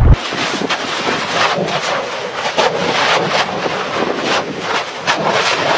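Volcanic eruption heard as a dense run of irregular cracks and pops with little deep rumble, starting suddenly.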